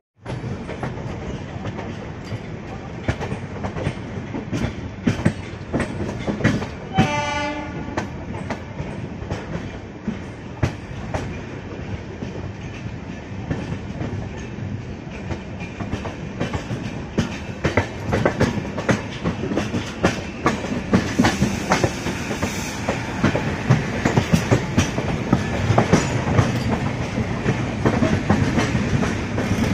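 Passenger train running on the rails, wheels clattering over the joints, getting louder toward the end. A short train horn sounds about seven seconds in.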